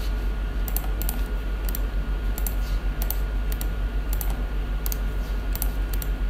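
Irregular clicks of a computer keyboard and mouse, a few at a time in small clusters, over a steady low hum.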